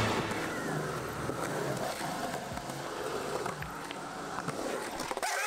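Skateboard wheels rolling steadily over a concrete skatepark surface, with a sharp clack of the board near the end.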